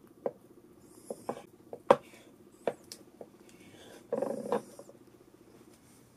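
Opinel folding knife cutting a block of luncheon meat into cubes on a wooden cutting board: a few sharp knocks of the blade striking the board, the loudest about two seconds in, and a short scraping burst just after four seconds as the pieces are handled.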